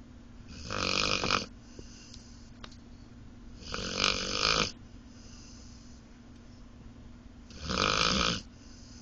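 A sleeping dog snoring: three loud snores, each about a second long, coming roughly every four seconds.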